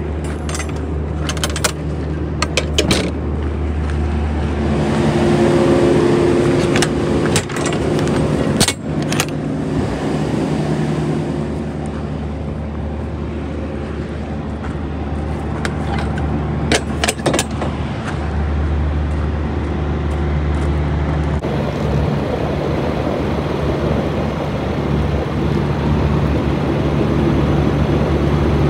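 An idling diesel truck engine drones steadily while the refrigerated trailer's swing doors are opened, with sharp metal clanks and rattles from the door hardware a few times. The engine sound changes and grows slightly louder near the end.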